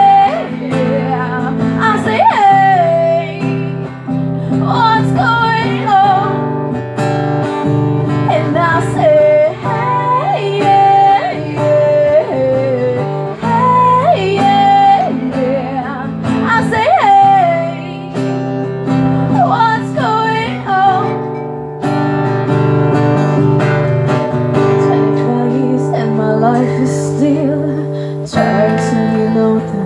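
Song performed on acoustic guitar and voice: strummed chords under a sung melody.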